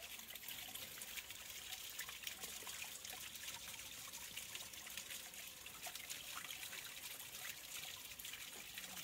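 Spring water trickling steadily down a moss-covered rock face into a small channel, a soft continuous trickle with many tiny drips and splashes.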